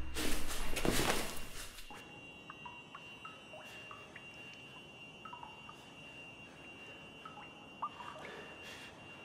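Film soundtrack: a loud rushing swell dies away within the first two seconds. It leaves a quiet background with faint, scattered short high chirps and a steady faint high tone.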